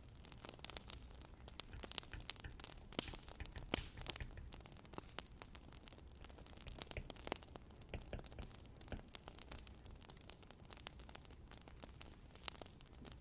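Wood fire crackling in a fireplace: a quiet, constant scatter of small irregular snaps and clicks over a low hiss.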